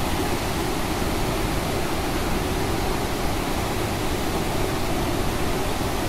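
Steady rushing of a waterfall and the rocky stream below it: an even, unbroken roar of water.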